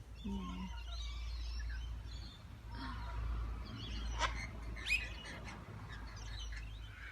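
Rainbow lorikeets and cockatoos chattering and calling, with two sharp, louder calls a little past the middle, over a steady low rumble.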